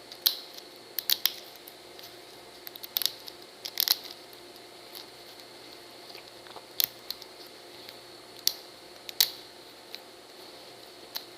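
Supports of a cured resin 3D print being snapped off by hand: about a dozen sharp little clicks and cracks at irregular intervals, over a faint steady hum.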